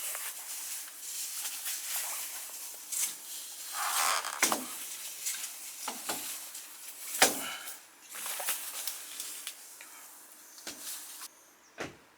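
Irregular rustling and handling noises, with a few sharp knocks scattered through it, about four or five in all.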